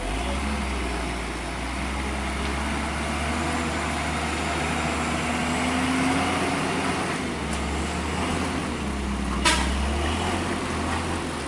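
Tanker truck's diesel engine running steadily under load as the truck climbs a steep, wet hairpin bend, over a broad hiss. There is one brief sharp noise about nine and a half seconds in.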